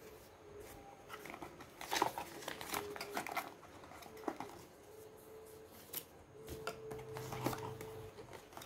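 Cardboard packaging being handled: scattered light taps, scrapes and rustles as a paperboard insert is worked out of a product box, busiest about two to three and a half seconds in.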